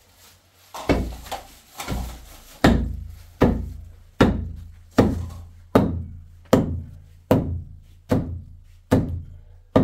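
A steady series of about a dozen heavy blows, roughly one every 0.8 s, each a deep thunk with a short fading ring.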